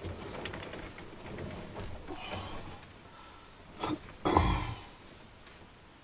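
Rustling of bedding and clothing as a person shifts on a bed and lies down, with a heavy thud a little after four seconds as the body settles onto the bed, then quiet.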